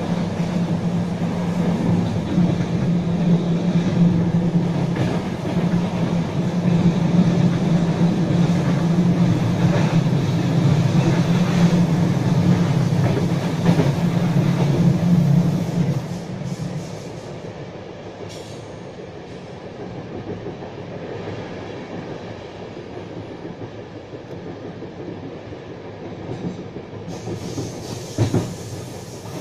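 Running noise of a Croatian Railways passenger train heard from inside the coach: a steady low drone with rolling wheel noise, loud at first and dropping off sharply about halfway through. A couple of sharp wheel clacks come near the end.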